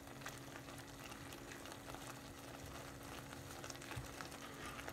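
Thick mango-and-sugar syrup simmering in a non-stick pan, with a faint steady crackle of small bubbles as a silicone spatula stirs through it. A steady low hum runs underneath.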